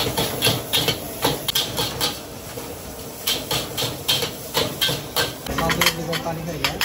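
Metal spatula and ladle clanking and scraping against a wok as noodles are tossed, in irregular quick strikes, over a steady sizzling hiss.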